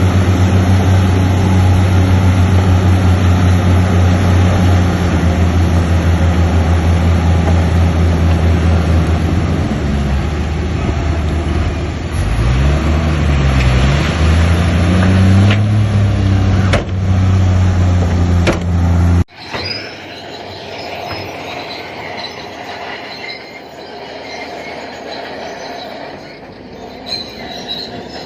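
Bulldozer's diesel engine running loud and steady, its pitch rising and falling a little past halfway as it works under load. About 19 seconds in the sound cuts abruptly to a quieter stretch of high metallic squealing, typical of crawler tracks running.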